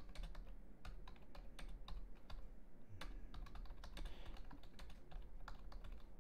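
Typing on a computer keyboard: an irregular run of keystroke clicks, a few a second, as a sentence is typed.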